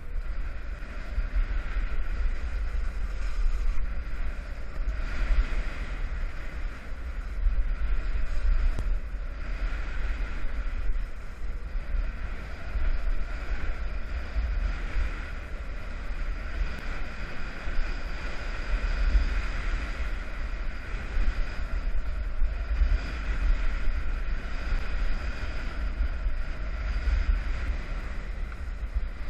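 Wind buffeting the microphone of a skier's camera, a low rumble that comes and goes in gusts, over the steady hiss of skis sliding on snow.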